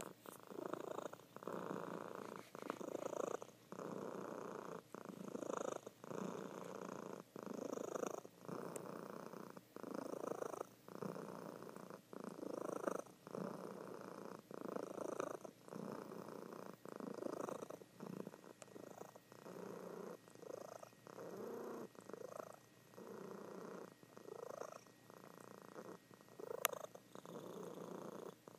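Calico cat purring in her sleep, a steady rumble broken by short pauses about once a second. A single sharp click sounds near the end.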